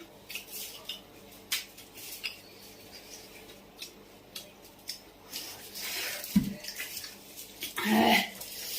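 Close-up eating of puchka (pani puri): scattered small crunches, clicks and wet slurps, with light clinks of a plate and utensils. A thump comes about six seconds in, and a short voiced sound near the end.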